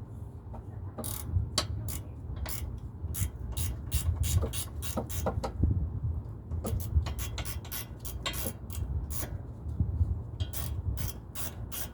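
A 12mm combination wrench working a bolt on a car's brake assembly: a run of sharp metal clicks and clinks, a few a second at an uneven pace, over a steady low rumble.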